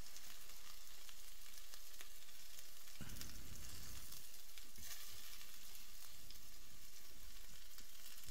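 Chicken escalopes sizzling steadily in hot oil in a stainless steel frying pan as a fork lifts them out, with a few faint clicks.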